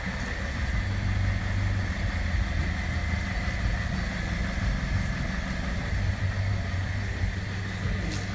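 2007 Dodge Caliber's four-cylinder engine idling steadily, a rough idle that the owner says has not been fixed.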